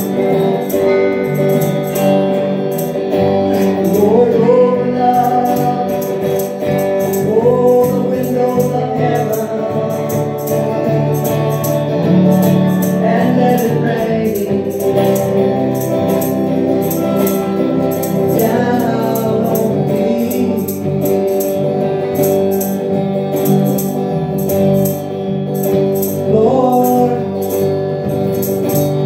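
Live gospel song: a woman singing into a microphone while playing electric guitar, with instrumental backing and a steady rattling beat.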